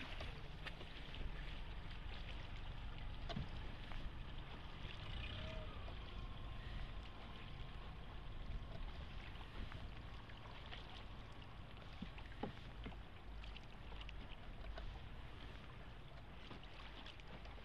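A Venetian rowing boat being rowed: water sloshing and lapping around the hull and oar, with scattered small knocks over a steady low rumble.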